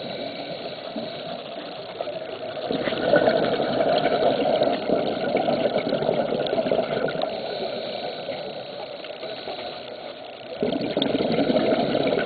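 Scuba diver's exhaled breath bubbling out of a regulator, heard underwater: a long rush of bubbles starting about three seconds in, a short lull, and another starting near the end.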